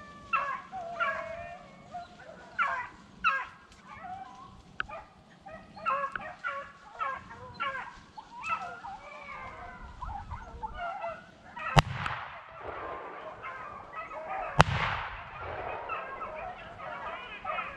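Beagles baying in chorus as they run a rabbit, with two loud shotgun shots about three seconds apart in the second half, each followed by a brief echo.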